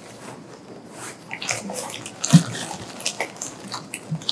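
White paper wrapping rustling and crinkling as hands crumple it and pull it off a camera, with a soft thump a little over two seconds in.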